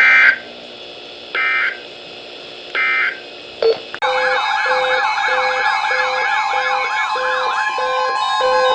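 Emergency Alert System end-of-message data bursts: three short, shrill digital screeches about a second and a half apart. About four seconds in, an electronic alert tone starts up and keeps going: a siren-like warble with a steady tone under it and regular beeps about twice a second.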